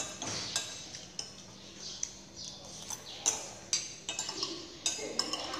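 Metal spoons clinking against ceramic bowls and plates as food is served and eaten, in a scattering of sharp, irregular clinks.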